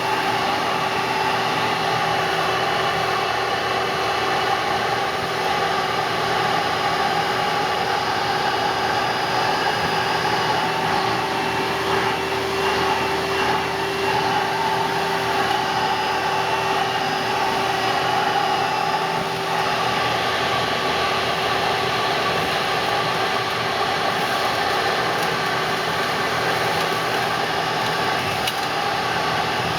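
Hoover Dimension Supreme direct-air upright vacuum running steadily, sucking up a pile of dirt through its hose: rushing air over a steady motor whine.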